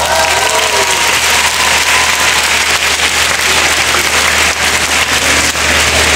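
Audience applauding steadily, many hands clapping together. The choir's last sung note dies away in the first couple of seconds.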